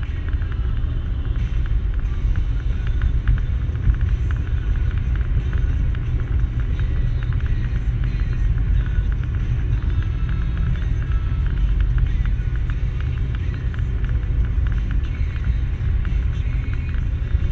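Steady low rumble of a car driving at highway speed, heard inside the cabin, with many faint quick ticks throughout.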